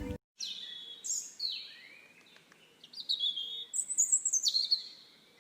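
Birds chirping and singing in short, high, quick phrases, with the busiest calling about four seconds in.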